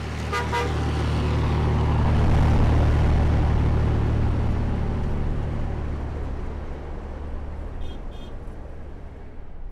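Scania 113 truck's diesel engine running with tyre and road noise as it goes by hauling a gas tanker. The noise swells to a peak about two seconds in, then slowly fades.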